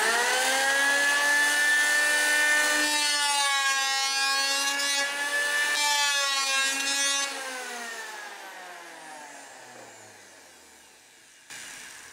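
Electric hand planer running with a steady high whine, its pitch wavering as it is pushed along a rough pallet board. About seven seconds in it is switched off and its cutter head winds down in a falling whine.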